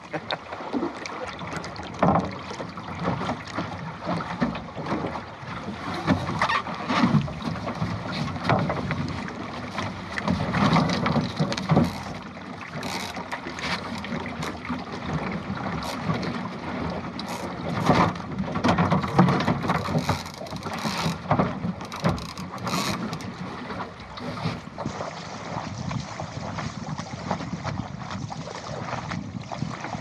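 Water rushing and slapping irregularly against the plywood hull of a Goat Island skiff under sail, with wind on the microphone.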